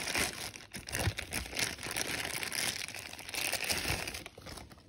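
A clear plastic bag crinkling and rustling in the hands as it is pulled off. The rustle fades out near the end.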